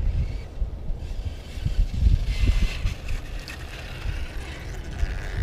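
Team Associated RC8.2e electric RC buggy's brushless motor whining as it makes a speed run on a 4S LiPo, the high whine coming in about two seconds in and dipping and rising. Heavy wind buffeting on the microphone throughout.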